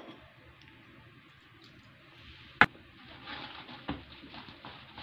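Wire whisk stirring thick biscuit-crumb batter in a stainless steel bowl: one sharp clink a little after two seconds in, then a run of short scraping strokes, a few each second.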